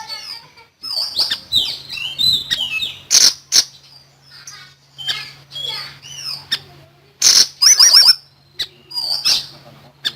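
Siri-siri songbird singing in sharp, varied bursts: quick chirps, whistled up-and-down glides and fast rattling trills, each phrase broken by short pauses, over a faint steady low hum.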